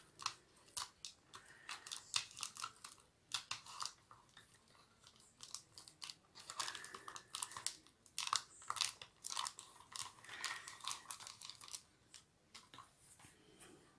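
Rolled paper tubes crinkling and rustling as hands bend and straighten them around a tin can, a quick, irregular run of small crackles.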